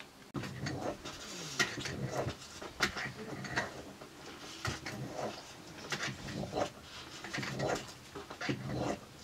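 A metal spoon scraping and stirring inside a small pan, making irregular scrapes and clicks throughout.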